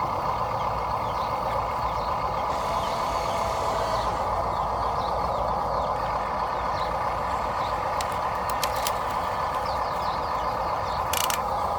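Steady mechanical whirring of a small electric motor and gears. There are a few sharp clicks about eight seconds in and a brief hiss near the end.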